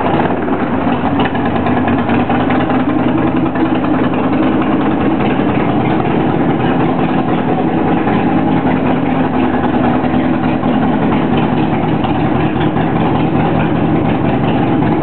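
1999 Harley-Davidson Sportster XL's air-cooled V-twin engine idling steadily.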